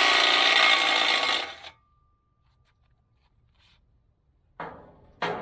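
Impact wrench with a 1 1/4-inch socket undoing big nuts on the bucket linkage of a mini excavator. It hammers for about a second and a half, then stops suddenly. Near the end come two short metallic clanks.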